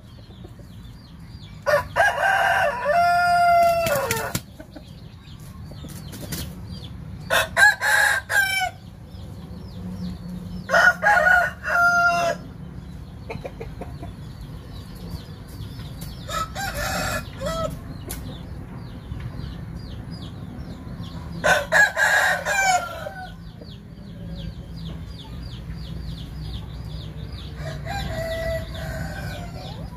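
Gamecock roosters crowing six times at intervals of a few seconds, each crow a long call. The loudest crows come in the first half.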